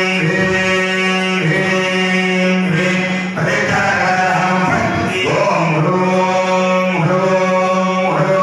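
Hindu temple priests chanting together in unison, amplified through hand-held microphones: long notes held on one steady pitch, broken every second or two by short breaths and small slides between notes.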